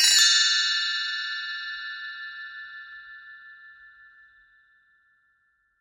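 A bell-like chime struck once, its several high ringing tones fading away slowly over about five seconds.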